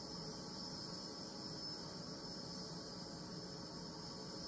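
Experimental plasma globes running: a steady high-pitched whine over a faint hiss.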